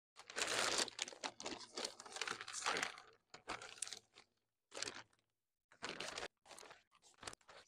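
Plastic bag of planting compost crinkling and rustling as it is handled, opened and reached into. The rustling comes in irregular bursts, dense over the first three seconds, then shorter bursts with brief gaps.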